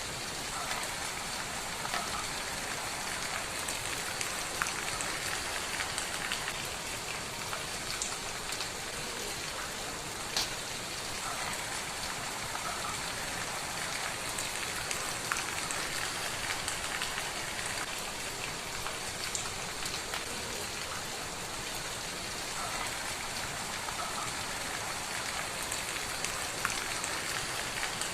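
Steady rain falling, with scattered sharp crackles and pops from a wood fire burning in a fireplace.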